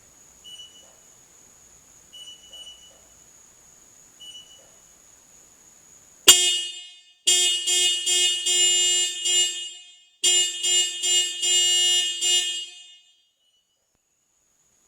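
Car alarm sounding through the car's horn. It starts suddenly about six seconds in as rapid, pulsing honks in three bursts with short breaks between them, and stops about thirteen seconds in. Before it, faint short beeps come about every two seconds.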